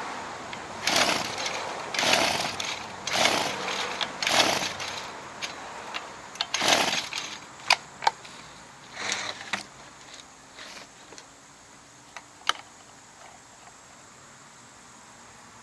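Several short rasping mechanical bursts, each under a second, about a second apart, followed by a few sharp clicks.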